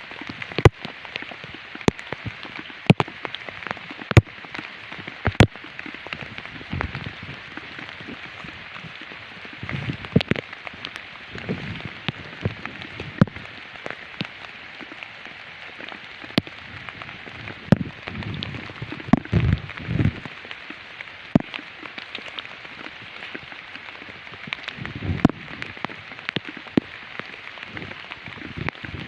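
Steady rain patter with many sharp ticks of drops striking close by. A few low thuds come about two-thirds of the way through and again near the end.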